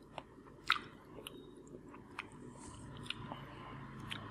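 A person chewing crisp baked banana chips, with sharp, irregular crunches; the loudest comes a little under a second in.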